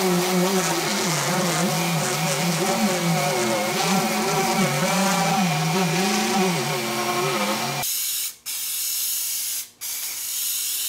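Random orbital sander running on walnut, its motor pitch wavering up and down as it is pressed and moved across the board. About eight seconds in it cuts to the steady hiss of finish being sprayed, broken twice by short gaps.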